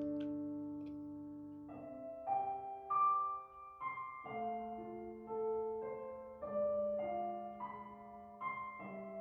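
Background music: soft solo piano playing slow, sustained notes.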